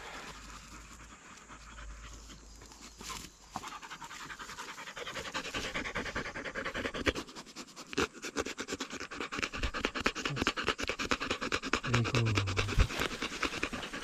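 A dog panting hard close to the microphone: quick, even breaths that start about four seconds in and grow louder.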